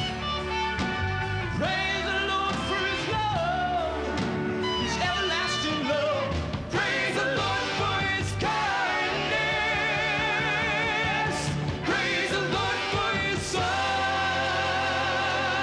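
Live rock band playing with electric guitars, bass and drums, a lead voice singing over them with wavering, held notes.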